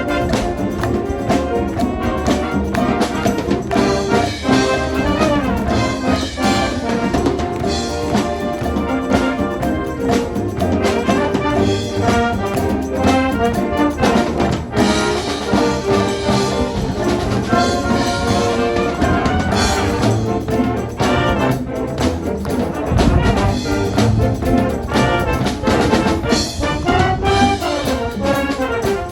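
A high school marching band playing live: full brass section over a steady drum-kit and percussion beat.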